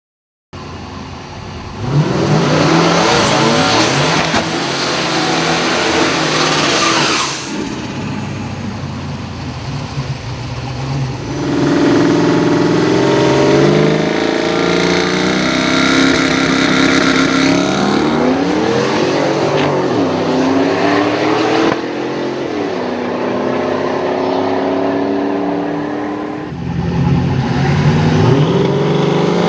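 Twin-turbo small-block Ford V8 of a 1988 Mustang, revving and accelerating hard in several runs, its pitch climbing, dropping back and climbing again.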